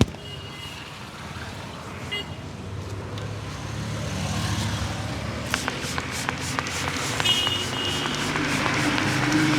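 Street traffic: a steady rumble of passing vehicles that grows louder, with two short vehicle horn toots, one near the start and one about seven seconds in. A run of sharp clicks joins in over the second half.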